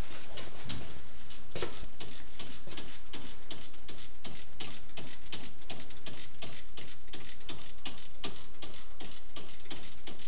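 Ratchet wrench clicking in a quick, fairly even run, about five clicks a second, as a bolt in the engine bay is turned.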